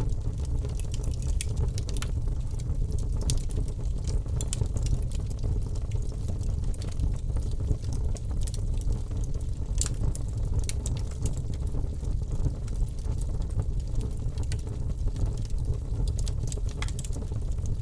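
Wood fire crackling in a fireplace: irregular sharp snaps and pops over a steady low rumble from the flames.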